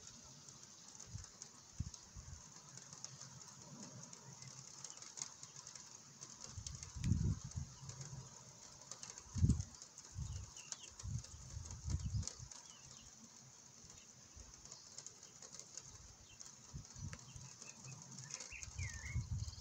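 Wind buffeting the microphone in short, irregular low thumps over a steady high hiss. A bird chirps faintly about ten seconds in and again near the end.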